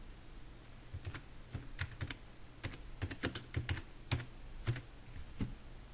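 Typing on a computer keyboard: a string of irregular keystroke clicks entering a short name, starting about a second in and stopping shortly before the end.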